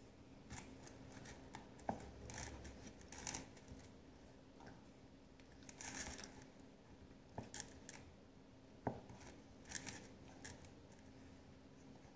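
A knife slicing banana into small pieces on a plate: faint, scattered scrapes and ticks of the blade cutting through the fruit and against the plate.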